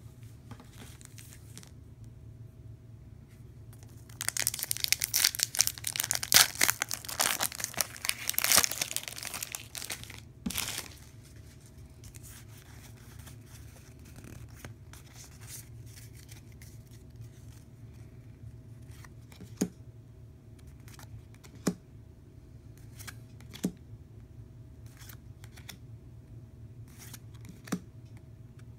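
A booster pack's foil wrapper being torn open and crinkled for about six seconds. Then quieter handling of the cards, with a few sharp clicks a couple of seconds apart as cards are flipped.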